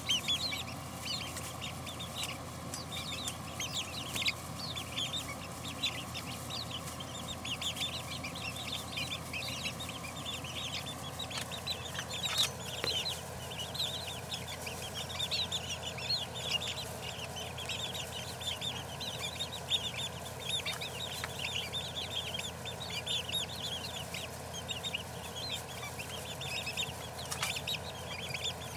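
A flock of young Silver Grey Dorking chicks, with a buff Cochin and a light Brahma among them, peeping continuously: many short, high cheeps overlapping several to the second. A couple of sharp clicks stand out, one about halfway through and one near the end.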